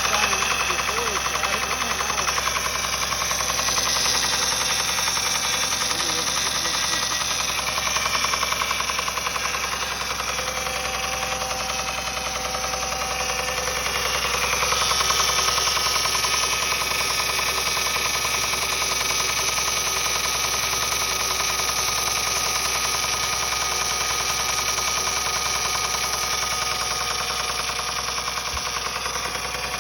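2007 Honda Accord engine with 257,000 miles running, with a rapid, even knocking noise throughout. The knock's cause is unknown to the owner, who has found the timing belt tensioner tight and not failed.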